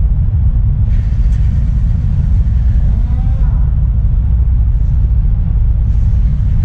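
Semi truck's engine and road noise, a steady deep rumble, with a faint voice briefly about three seconds in.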